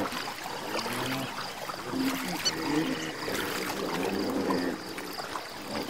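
Hippopotamuses in a river: water splashing and trickling around them, with low, wavering calls, strongest about two to three seconds in.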